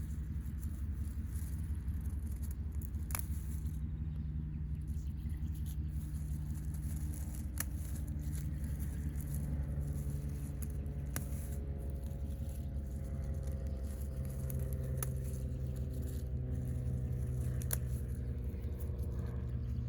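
A steady low hum with a few faint tones that drift slowly in pitch, broken by a handful of light clicks.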